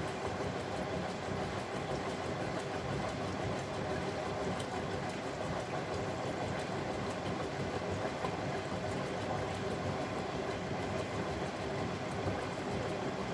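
Bosch Maxx WFL 248Y front-loading washing machine running, a steady, even drum-and-motor noise with occasional faint ticks.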